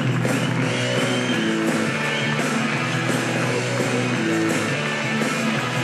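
Background rock music with guitar, playing steadily throughout.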